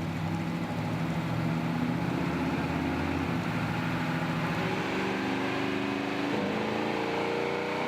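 A car engine running steadily, then its pitch climbing gradually from about three seconds in as it revs up or pulls away.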